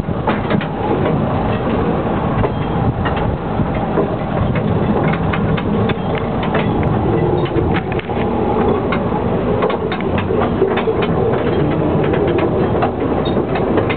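Narrow-gauge train running along the track: a steady rumble of the running gear with many scattered sharp clicks and rattles from the wheels and cars.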